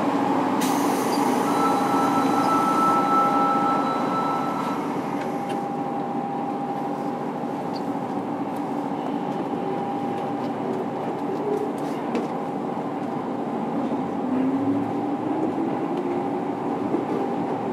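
Onboard running sound of a JR Kyushu 103 series 1500-subseries electric train car (MoHa 102-1506) in a subway tunnel, heard from inside the car: the drone of its MT55 traction motors over steady wheel-on-rail noise. Late on, a low motor tone rises in pitch.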